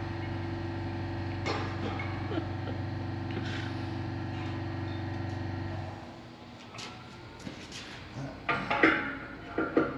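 A machine's steady hum runs and then cuts off suddenly about six seconds in. Near the end come several sharp knocks and clatters from parts being handled.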